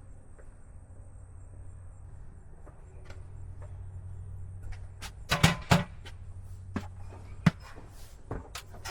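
Sharp knocks and clanks of objects being handled and set down, loudest in a quick cluster about five and a half seconds in, then a few single knocks, over a low steady hum.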